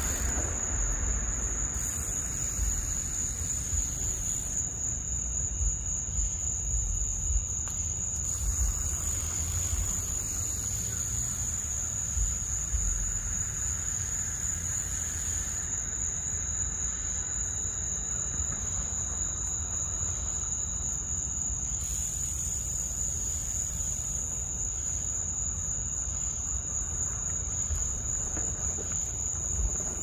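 Crickets trilling in one steady, unbroken high-pitched note, with a low rumble underneath.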